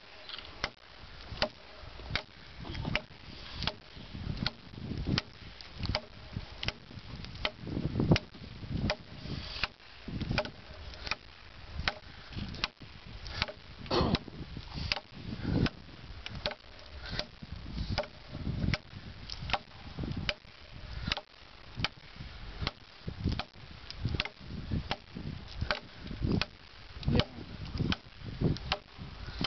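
Busse Battle Mistress knife chopping repeatedly into a wooden 4x4 post: a steady run of sharp wooden thwacks, a little more than one blow a second.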